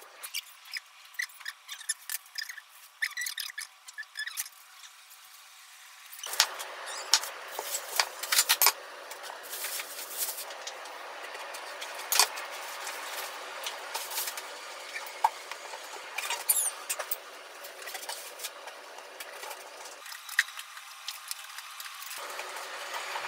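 Kitchen knife cutting through eggplants on a wooden cutting board: scattered knocks and clicks of the blade against the board as the stems are cut off and the eggplants are slit lengthwise.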